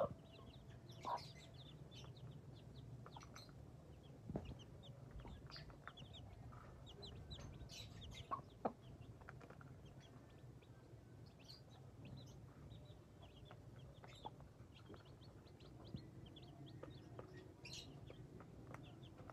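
Faint peeping of young chicks in many short high notes, with a mother hen clucking now and then as they peck at grain.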